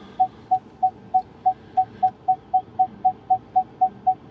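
Ford F-150 Lightning's rear parking sensor beeping a single mid-pitched tone about three to four times a second, heard inside the cab. The beeps come slightly faster as the truck closes on the trailer's coupler while backing up.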